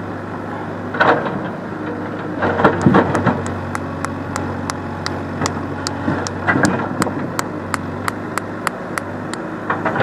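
Backhoe loader's engine running steadily, with bouts of clatter about a second in, around the third second and again past the sixth. From about three and a half seconds in there is a run of sharp, evenly spaced clicks, about three a second.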